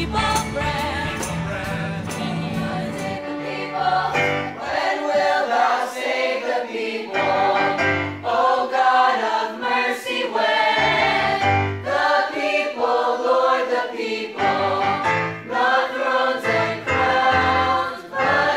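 A choir of teenage voices singing in harmony, with keyboard accompaniment.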